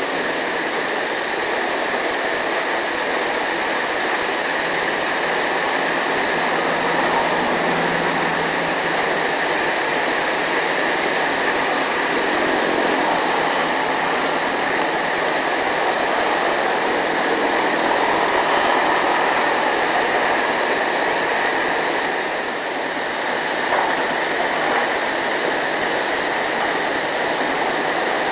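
JCB JS205 tracked excavator at work: its diesel engine and hydraulics make a steady drone, with a brief dip about three-quarters of the way through.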